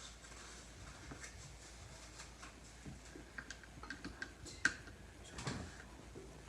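Scattered light clicks and taps from slime-making supplies, such as cups, bottles and utensils, being handled, with one sharper click about two-thirds of the way through and a brief scrape soon after.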